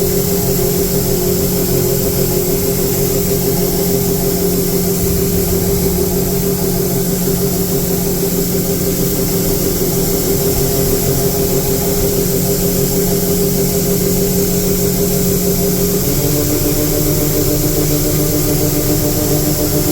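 Large farm harvest machine's engine running steadily, its hum dropping to a lower pitch about 16 seconds in.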